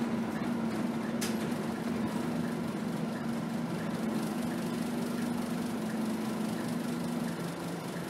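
Engine of a Scania K280 city bus running, heard from inside the passenger saloon: a steady hum that drops slightly in pitch near the end. A brief click about a second in.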